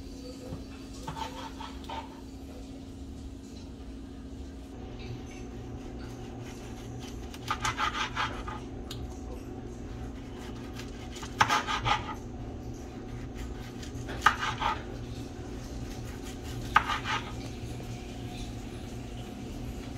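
Kitchen clatter: dishes and utensils knocking and clinking in four short flurries of rapid strokes, over a steady low hum.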